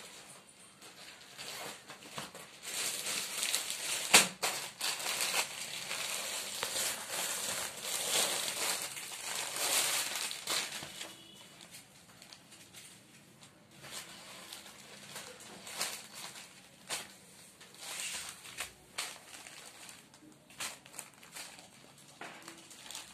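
Crinkling of clear plastic wrapping and rustling of saree cloth as folded sarees are handled and unfolded. The rustling is louder through the first half and quieter, with scattered small rustles, later, with one sharp click about four seconds in.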